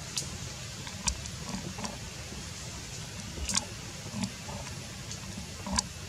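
Outdoor ambience: a steady low rumble with a handful of sharp clicks, the loudest about a second in, about three and a half seconds in and near the end.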